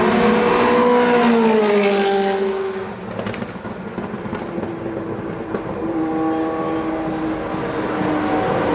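Vintage Formula 1 car engines at speed. One engine note drops in pitch and fades about three seconds in, then another engine note builds up louder toward the end.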